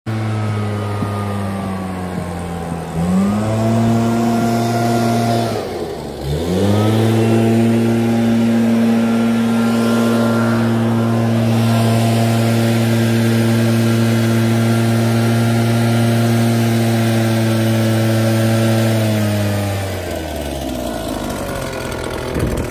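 Backpack leaf blower engine running hard, blowing air through a buried underground downspout line to clear leaves and debris out of it. The engine dips twice in the first few seconds, holds steady at full throttle, then drops back near the end.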